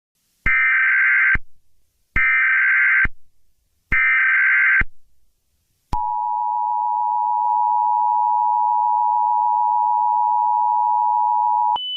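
Emergency Alert System tones: three SAME header data bursts, each about a second of harsh digital screeching, then the two-tone attention signal, a steady dual-tone drone held for about six seconds. Near the end it switches to a single higher steady tone.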